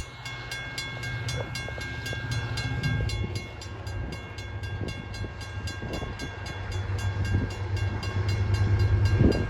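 California Northern Railroad diesel locomotive 501 approaching. Its engine rumble grows louder over the last few seconds, over a rapid, steady ringing. The horn begins to sound right at the end.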